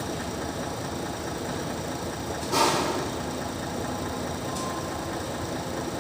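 Steady machine rumble of a repair shop, with one short, loud knock about two and a half seconds in and a faint click a couple of seconds later.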